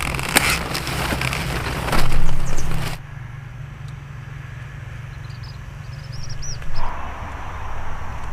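Cauliflower stalks and leaves cracking and crunching with sharp snaps for about three seconds. It then cuts abruptly to a quieter outdoor background with a low steady hum, and a small bird gives a quick run of short high chirps.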